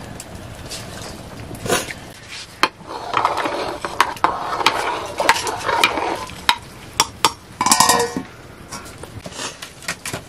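A metal ladle stirring and scraping in a metal cooking pot, with many sharp clinks against the pot's side and a louder clatter near the end.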